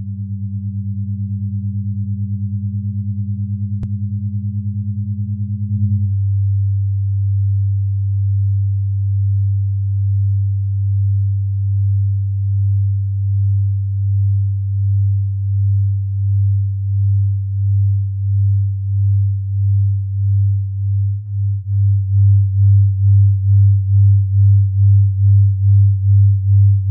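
Pure electronic sine tones: a deep steady hum with a higher tone above it that stops about six seconds in. The deep tone throbs in slow waves that grow stronger and quicker toward the end, where each pulse takes on a slight buzz.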